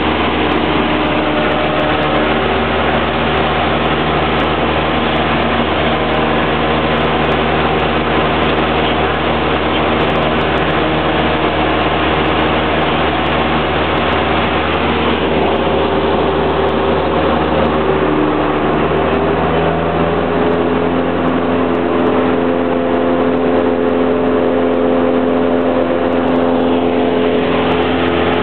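Cessna 172's piston engine and propeller running steadily, heard inside the cabin in flight. The engine's pitch shifts about two-thirds of the way in.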